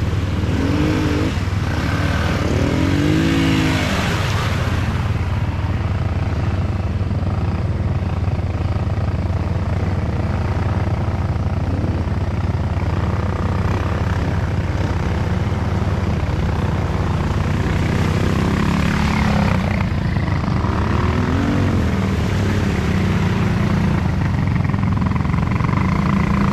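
A motor vehicle's engine running steadily, with a few brief rises and falls in pitch near the start and again about two thirds of the way in.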